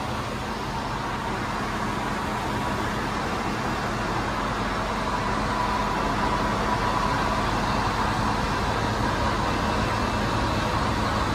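Ship's engine-room machinery running: a steady drone with a low hum and a faint high whine, getting somewhat louder about halfway through.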